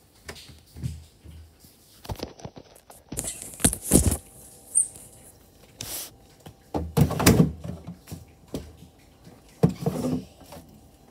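A series of irregular knocks, thumps and rustles, coming in clusters, loudest about four and seven seconds in.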